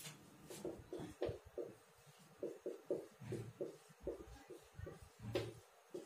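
Handwriting on a whiteboard with a marker: a faint run of short, irregular squeaks and scratches, one for each pen stroke.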